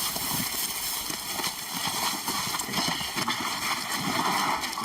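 Irregular shuffling footsteps and scuffing knocks of several people handling and carrying a sedated lion.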